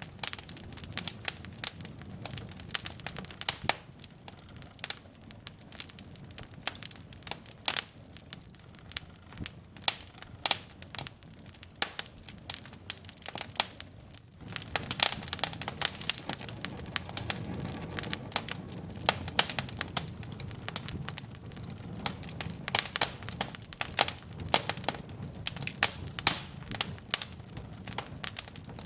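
Wood logs burning in a fireplace: irregular sharp crackles and pops over a low rumble of flame. The rumble and the pops grow louder about halfway through.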